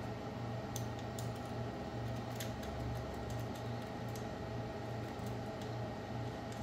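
Light clicks and taps of copper busbar plates and nuts being handled on LiFePO4 cell terminals, scattered and irregular, over a steady low hum.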